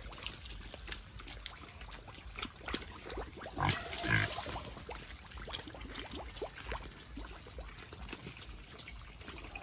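Native black pigs grunting and rooting, with a louder grunt about four seconds in. A short high chirp repeats a little more than once a second behind them.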